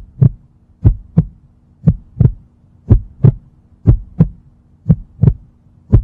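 Heartbeat sound effect: a steady lub-dub, pairs of short low thumps about once a second, over a faint low hum.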